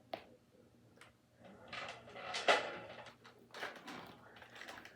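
A plastic toy foam-dart blaster being handled and turned over, with scattered clicks, knocks and scrapes of plastic. The loudest scrape comes about two and a half seconds in.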